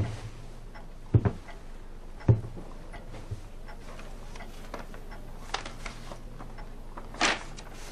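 A few scattered knocks and thumps, about half a dozen spread unevenly, over a low steady hum.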